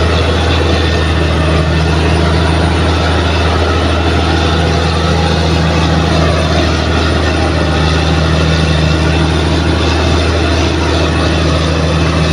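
Bulldozer's diesel engine running steadily with a deep, unbroken drone.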